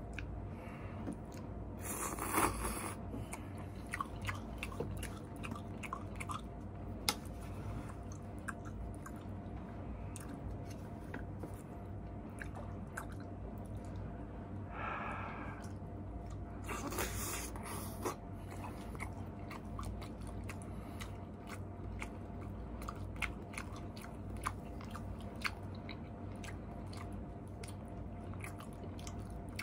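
Close-up chewing and wet mouth sounds of someone eating instant noodles with fish balls: many small clicks and smacks, with two louder slurps, about two seconds in and again around seventeen seconds. A steady low hum runs underneath.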